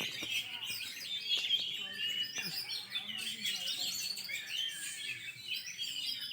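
Several oriental magpie-robins (kacer) singing at once: a dense, overlapping stream of fast chirps and whistles that never pauses, with a faint murmur of voices underneath.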